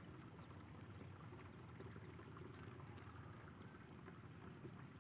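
Near silence: faint steady outdoor background.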